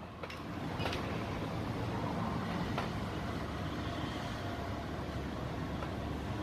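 Steady background noise with a low hum, and a couple of faint clicks as the plastic soundbar sections are handled.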